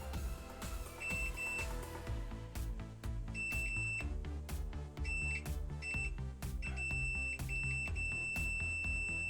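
Multimeter continuity buzzer beeping as the test probes touch circuit-board traces: several short beeps, then a long unbroken beep near the end, the beep meaning the trace conducts. Background music plays underneath.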